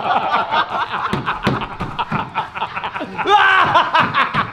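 People laughing in short, choppy bursts, with a louder, higher-pitched laugh a little past three seconds in.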